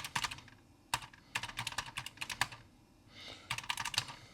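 Typing on a homemade mechanical keyboard fitted with Gateron KS-33 low-profile switches and MA-profile keycaps: quick runs of separate key clicks with short pauses between them.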